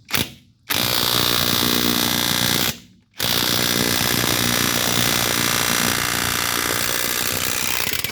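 Worx Nitro 20V brushless cordless impact wrench hammering on high power in reverse, loosening a pickup truck's lug nuts. There is a short blip, then a two-second run, a brief pause, and a run of about five seconds that stops suddenly.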